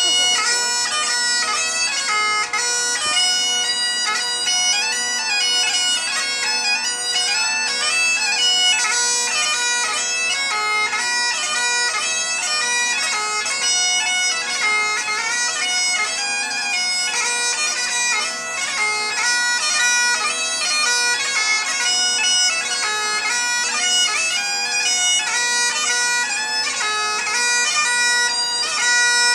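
Great Highland bagpipes playing a lively dance tune: the drones hold one steady chord under the chanter's quickly changing melody.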